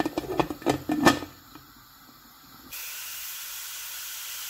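Metal clinks and knocks of a pressure cooker lid being fitted, then, after a short lull, a steady hiss of steam escaping from the closed pressure cooker's weight valve that starts suddenly.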